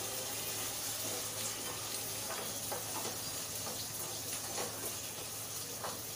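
Green peas and onions sizzling in hot oil in a steel kadai, a steady hiss with a few soft scrapes of a spoon as they are stirred.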